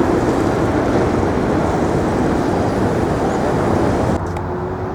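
Steady outdoor rumble and hiss, like wind on the microphone mixed with waterfront noise, easing a little about four seconds in.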